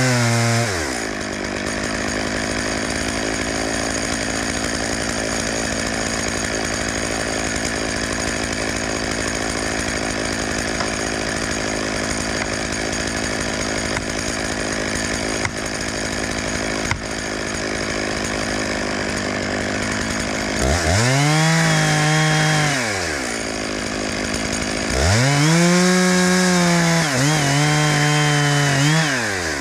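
Two-stroke chainsaw dropping from high revs to a steady idle, then revved up twice to high speed for a few seconds at a time, settling back to idle after each.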